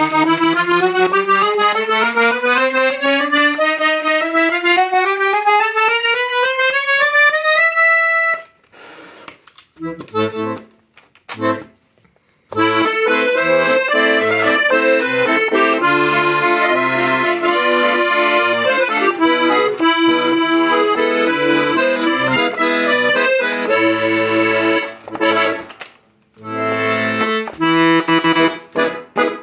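Hohner Concerto III piano accordion being played: first a steadily rising scale of single notes, then a few short chords with pauses, then a tune with chords over a repeating low bass accompaniment, which breaks off briefly near the end before resuming.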